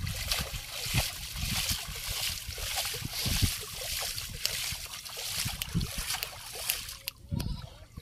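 Shallow floodwater splashing and sloshing as a cast net is hauled in through it by hand, with irregular low thumps of water; it eases off about seven seconds in.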